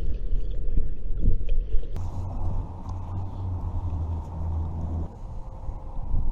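Strong wind buffeting the microphone and the ice shack, a heavy low rumble that swells for a few seconds in the middle.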